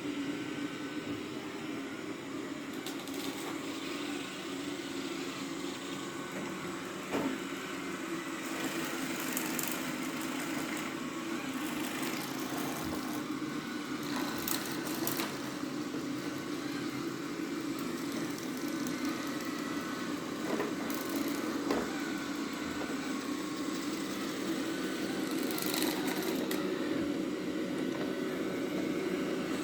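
Roborock Q7 Max robot vacuum running steadily while it vacuums a carpet: a constant motor and suction hum with brush noise. A few light knocks come through, the clearest about seven seconds in.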